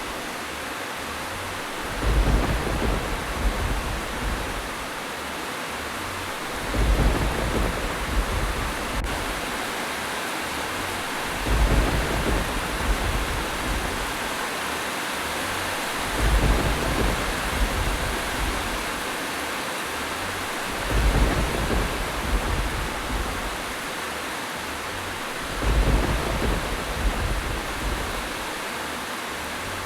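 Steady rain hiss, with a low rumble swelling and fading about every five seconds at even spacing, like a looped rain-and-thunder recording.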